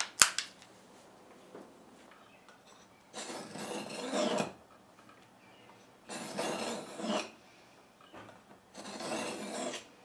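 A serrated knife blade drawn three times through a handheld pull-through knife sharpener, each stroke a rasping scrape lasting a little over a second, at about 3, 6 and 9 seconds in. Just before, a single sharp metallic click comes from a handgun being handled.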